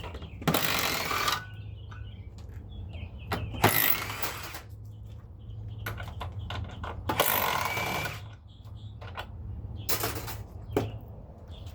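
Cordless power driver with a 1/2-inch DeWalt socket running in four short bursts, backing out the bolts that hold a small air conditioner's compressor, over a steady low hum.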